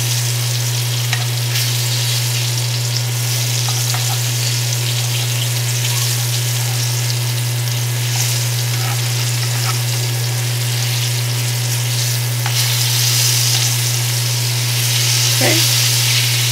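Breaded fish fillets sizzling steadily in hot grapeseed oil in a cast-iron skillet, with a few faint clicks of metal tongs as the pieces are turned. A steady low hum runs underneath.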